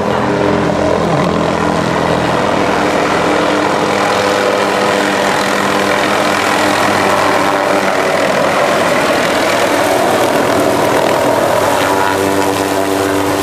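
Light helicopter running loud and steady, its rotor and engine noise carrying on unbroken as it descends and settles onto the ground to land.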